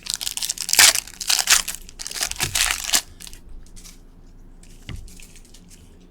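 Crinkling and crumpling of a trading-card pack wrapper being opened and balled up, loudest for about the first three seconds, then quieter handling with a light knock about five seconds in.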